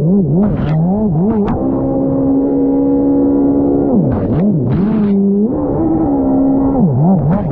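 Race jet ski engine heard onboard, held at a steady high rev with several quick throttle-off dips and pick-ups, as in cornering on a course, with brief rushes of noise over it.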